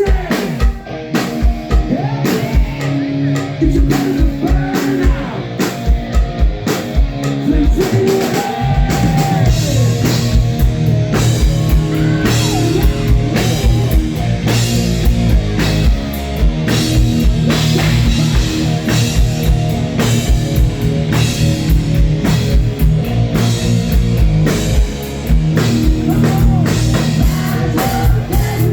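Live rock band playing, with a steady drum-kit beat, bass and guitar. The low end grows fuller from about eight seconds in.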